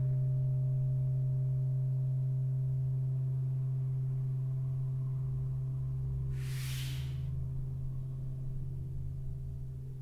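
Electronic soundtrack drone: a steady low sustained tone with fainter higher tones above it, slowly fading out. A short burst of hiss comes about six and a half seconds in.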